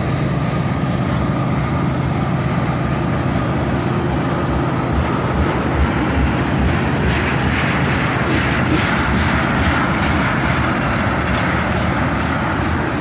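Tank cars of a freight train rolling past close by: a steady rumble of steel wheels on rail, with quick wheel clicks over the rail joints growing from about halfway through.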